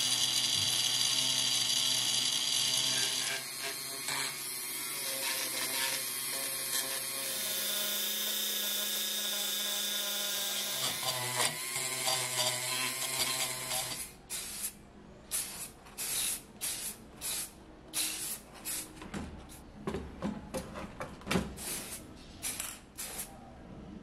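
Handheld rotary tool running at high speed with its small wheel held against the rusty steel parts of an old Remington typewriter, a steady high whine whose tone shifts as the wheel is pressed in and lifted. After about fourteen seconds the whine stops, and a series of separate sharp clicks follows, one or two a second.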